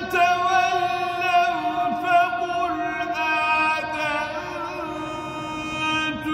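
A man's solo Quran recitation in the melodic tajweed style, one long melismatic phrase of held, ornamented notes that step down in pitch partway through.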